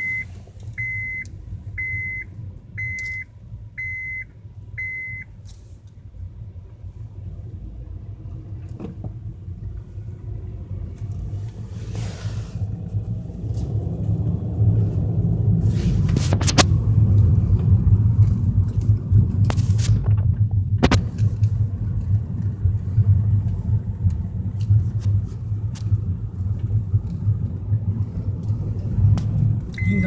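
Vehicle cabin: a dashboard warning chime beeps about once a second, six times, then the low rumble of the vehicle moving on the road grows louder from about halfway, with a couple of short knocks.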